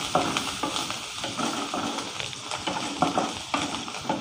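A spoon stirring and scraping basil and coriander leaves sautéing in a little oil in a pan on low heat, over a low sizzle, with irregular knocks of the spoon against the pan.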